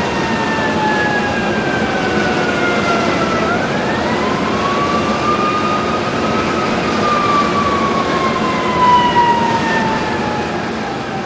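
Train rolling along the track with a steady running noise, over which a drawn-out whine slowly falls in pitch, rises again about three and a half seconds in, then falls slowly once more.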